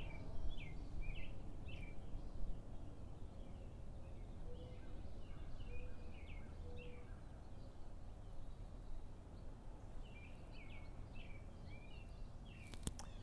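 Outdoor ambience: small songbirds chirping in short quick notes, in a bout at the start and another near the end, over a steady low background rumble. A single sharp click sounds near the end.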